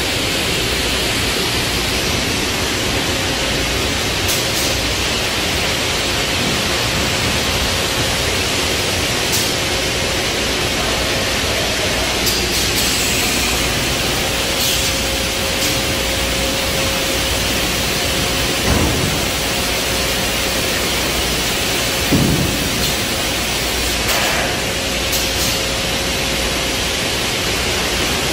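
Steady, loud hiss of machinery in a retort processing plant, with a faint steady hum and a couple of dull knocks about two-thirds of the way through.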